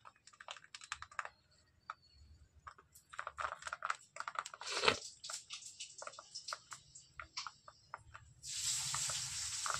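Fingers pressing damp star composition paste through a wire-mesh screen to granulate it, making an irregular run of small scratchy clicks and rustles from the mesh and the plastic sheet beneath. A steady hiss comes in near the end.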